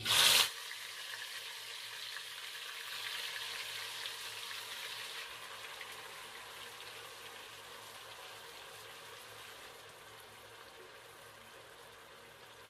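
A blended onion, tomato and garlic mixture hitting hot cooking oil: a loud burst of sizzling at the start, then a steady frying sizzle that slowly fades as the oil cools under the wet mixture.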